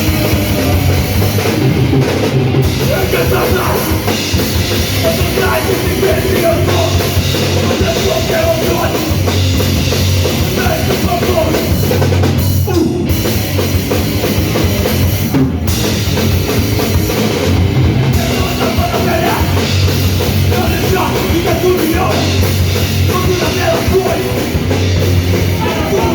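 Crust punk band playing live: loud, distorted rock with a drum kit pounding throughout.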